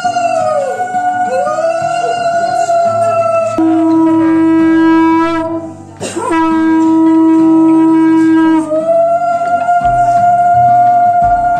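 Conch shells (shankha) blown in long held notes during a Bengali wedding rite. Higher notes bend in pitch as each blow starts and ends, and two lower steady notes of about two seconds each come in the middle.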